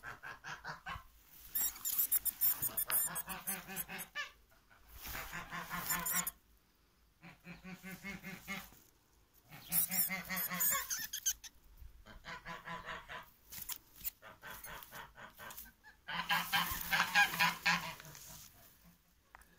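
Domestic cat growling and yowling over its prey: about six long, low, buzzing calls, each a second or two long, with short pauses between them.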